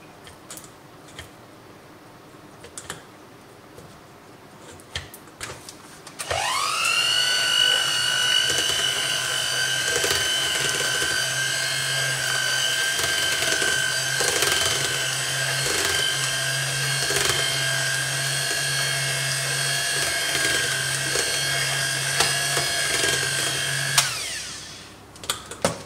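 Electric mixer beating butter: after a few light knocks, the motor spins up about six seconds in and runs at a steady high whine with light knocks. It stops about two seconds before the end.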